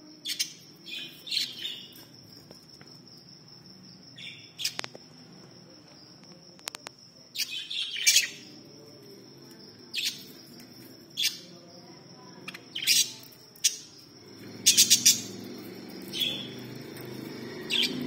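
Caged budgerigars chirping: about a dozen short, sharp, high calls at irregular intervals, the loudest in a quick cluster near the end. A steady high-pitched whine runs underneath.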